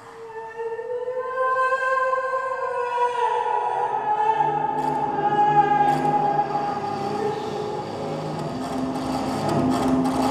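Experimental live music: long held high tones that slowly slide in pitch, joined about four seconds in by low bowed cello notes.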